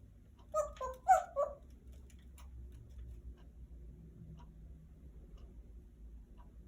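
A pet animal gives three or four quick squeaky calls within about a second, then a clock ticks faintly about once a second.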